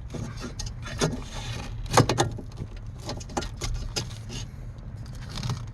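Scattered small clicks, taps and rattles of hands working on plastic steering-column parts and the ignition switch wiring, the sharpest click about two seconds in, over a low steady hum.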